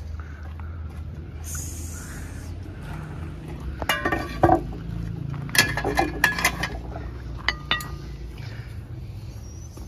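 Aluminium cooking pot and its lid clinking and clattering as the lid is handled, in two short runs of metallic clinks with ringing about four and six seconds in, then a couple of lighter ringing taps.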